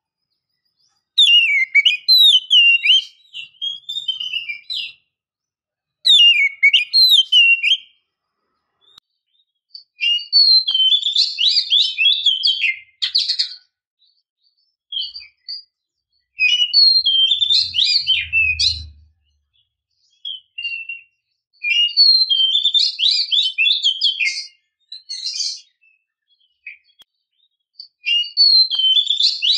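Oriental magpie-robin (kacer) singing: about six bouts of rapid, sliding whistled phrases, each a couple of seconds long, with short pauses between. This is a lure recording meant to set a silent male kacer singing.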